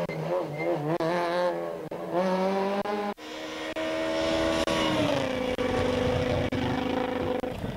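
Peugeot 207 S2000 rally car's 2.0-litre four-cylinder engine revving hard, its pitch rising and falling with the throttle and gear changes. After a sudden break about three seconds in, the car comes on at steady high revs and its pitch drops as it passes by.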